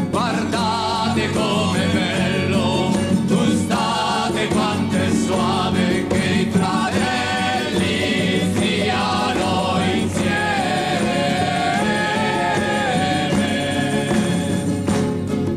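Choir singing an Italian hymn over instrumental accompaniment, holding one long note about two-thirds of the way through.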